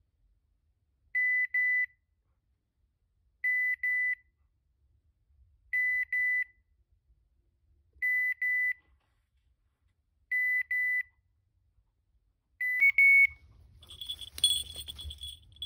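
Dog beeper collar sounding its point-mode signal, a double electronic beep repeated about every two and a half seconds, six times: the setter is standing motionless on point. Near the end the last beep comes louder and higher, followed by a short flurry of rustling with a high whistle.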